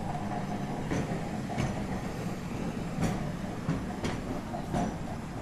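Heritage electric tramcar on street rails: a steady low rumble with a few irregular sharp clicks and clacks from the wheels on the track.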